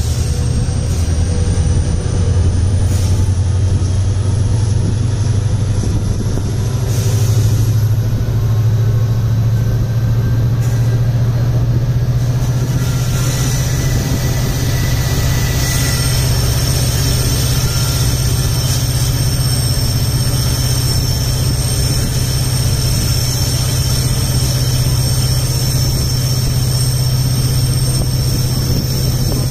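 WDP4D diesel-electric locomotive's two-stroke V16 engine roaring under power at the head of the train, a steady low drone over the running noise of the wheels on the rails. A thin, high steady whine joins about halfway through.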